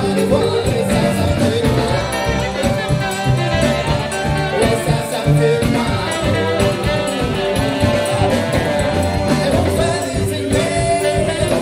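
Live Cajun-zydeco band playing: fiddle and diatonic button accordion over sousaphone bass and a drum kit.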